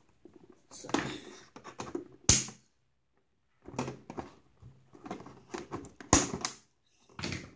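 Toy blaster being freed from its retail box: irregular rustling and scraping of cardboard and plastic, with sharp clicks about two seconds in and a pair of them near the end.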